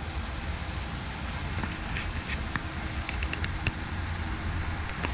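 Steady low outdoor background rumble with a few faint, short high chirps scattered through it.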